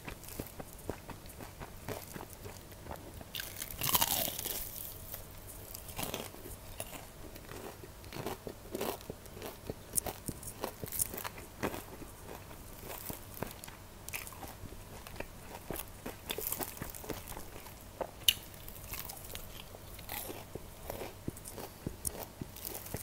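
Crunchy bites into a piece of BBQ Golden Olive fried chicken and close-up chewing, the fried crust crackling in many short sharp crunches. The loudest crunch comes about four seconds in.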